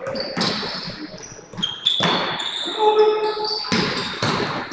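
Basketball game play: a ball being dribbled on a hardwood court with short, high sneaker squeaks as players cut and stop, and players calling out now and then.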